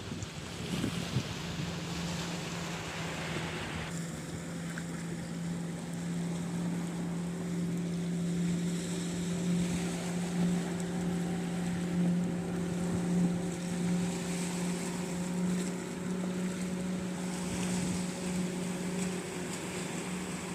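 A steady low motor hum holding one pitch, over a haze of wind and surf noise.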